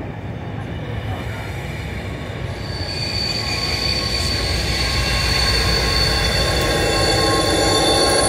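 Wheels squealing from a passenger train and its Class 57 diesel locomotive moving slowly through a station platform, over a low rumble. The squeal comes in about three seconds in and grows louder as the locomotive draws level.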